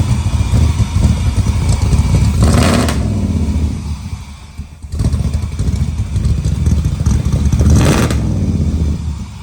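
Swapped-in LS3 V8 running with its misfire codes cleared after an injector connector repair. It is revved twice, about five seconds apart, and drops back to a lower rumble between the revs.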